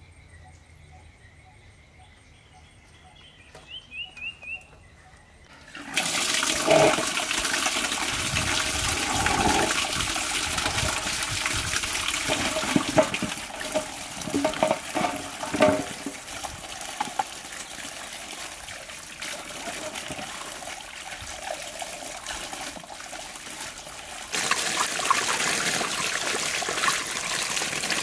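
Tap water gushing into a metal basin full of eggplants, starting about six seconds in, with irregular knocks as the eggplants are tipped in from a basket and handled, and a louder splashing near the end as they are rinsed under the stream. Before the water, a few quick bird chirps.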